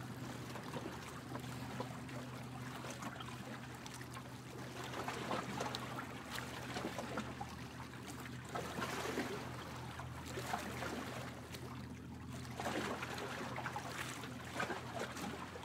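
Steady low hum of a moored narrowboat's engine idling, with faint irregular trickling and rustling over it.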